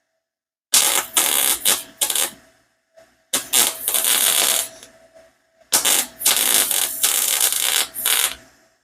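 MIG welder laying a bead on a steel exhaust header: three bursts of steady arc crackle, each about two seconds long, with short pauses between the trigger pulls.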